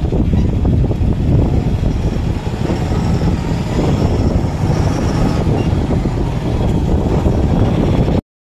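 Loud, steady rumble of a moving lorry heard from its cab: engine, road and wind noise, heaviest in the low end. It cuts off suddenly near the end.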